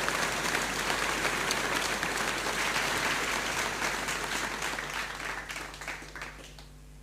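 Crowd applause, many hands clapping densely, then thinning out over the last couple of seconds into a few scattered claps before stopping.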